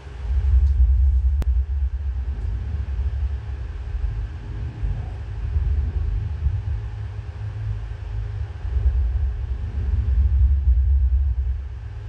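Deep bass rumble from a film soundtrack's opening, played through a home cinema system with a subwoofer. It comes in suddenly and swells and eases in slow waves, with a single brief click about a second and a half in.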